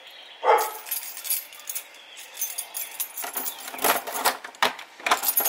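Keys jingling and clicking against a door lock as a door is unlocked, with a run of small metallic rattles and knocks near the end. About half a second in there is a short vocal sound.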